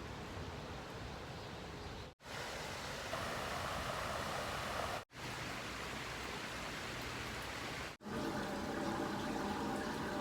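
Steady rushing of water, heard in several short clips that break off abruptly every few seconds.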